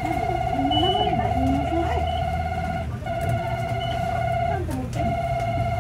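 Electronic warning buzzer on a stopped city bus sounding one steady tone in long stretches of one to four seconds with short breaks, over the low rumble of the idling engine.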